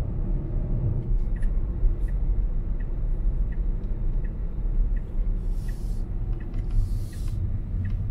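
Road and tyre rumble inside a Tesla Model Y's cabin while driving; the electric car has no engine noise. A light, regular ticking about every 0.7 seconds runs through it, like a turn signal as the car turns off the road, and two short hisses come in the second half.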